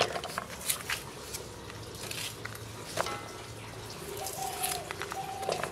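Bottle gourd being sliced by hand on a boti blade, giving scattered sharp clicks and taps, with the sharpest knock right at the start.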